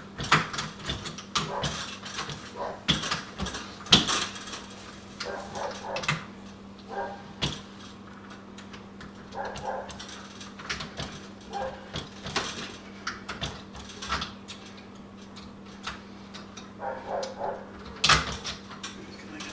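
Clicks and metallic clatter of a Schlage deadbolt's parts being fitted into a door by hand, irregular and sharp. Short whines sound now and then between the clicks, over a faint steady hum.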